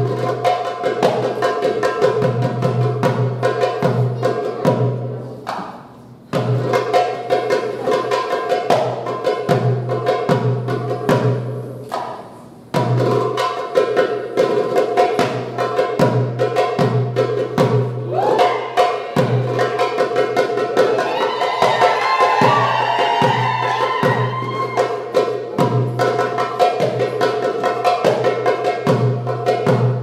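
Darbuka (Egyptian goblet drum) solo: fast, rhythmic strokes of deep doums and sharp teks. Twice the playing dies away and then comes back in sharply. From about 18 to 24 seconds a wavering high tone rides over the drumming.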